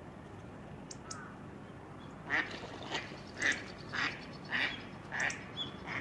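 Hawfinch giving a run of about seven short, harsh calls, a little over half a second apart, starting about two seconds in.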